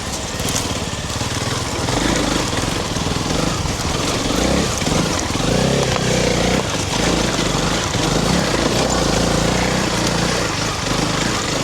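Honda CRF300 Rally's single-cylinder engine running steadily as the motorcycle is ridden on a trail.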